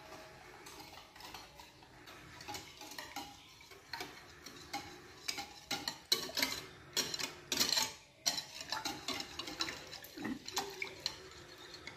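Metal wire whisk beating liquid pancake batter in a bowl: quick, uneven clicking and scraping of the wires against the bowl, loudest in the middle.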